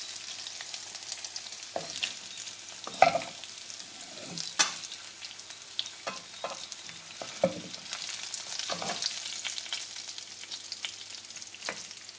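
Small pieces of chicken with ginger and garlic sizzling steadily in hot oil in a pan, fried to golden brown. A utensil scrapes and knocks against the pan at irregular moments as the pieces are stirred and turned, the loudest knock about three seconds in.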